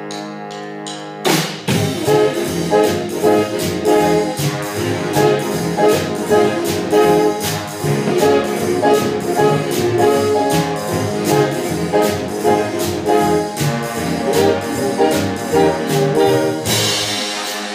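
A live big band playing swing: saxophone, trumpet and trombone sections with upright bass. A chord is held for about a second, then a loud accent brings in the full band over a steady beat, with a loud crash near the end.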